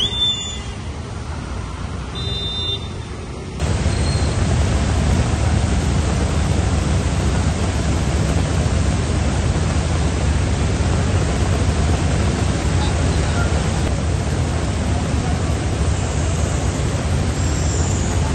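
Heavy rain pouring onto a flooded street: a loud, steady hiss that starts abruptly about three and a half seconds in. Before that, quieter traffic on a waterlogged road, with a few short high beeps.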